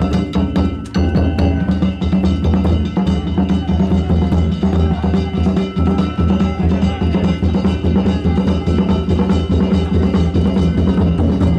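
Danjiri float's festival music: a big taiko drum beaten in a fast, even rhythm, with metal hand gongs (kane) ringing on top.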